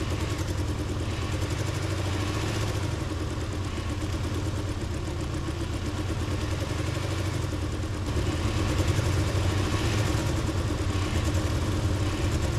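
Car engine idling rough, the shaking of a misfiring cylinder that a worn spark plug or failing ignition coil could cause. It gets louder about eight seconds in.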